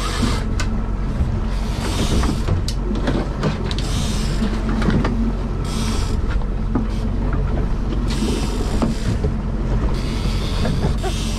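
Motorboat engine running steadily with a low hum, with bursts of hiss every second or two.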